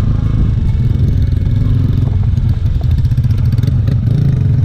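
Trail motorcycle engine running at a steady pitch, with a few knocks near the end.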